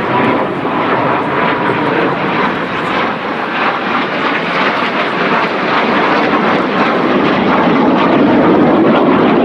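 Small jet trainer aircraft flying a display pass, its jet engine noise steady and swelling louder over the last few seconds.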